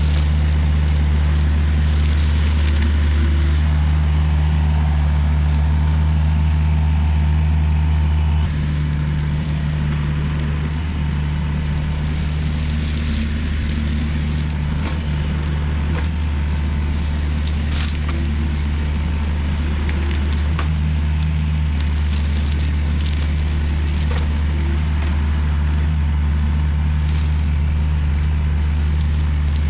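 Volvo EC35C mini excavator's diesel engine running steadily while driving a hydraulic RUT brush mower, with a thin steady whine over the low engine hum and scattered crackles of grass and brush being cut. The engine hum drops a little about eight seconds in.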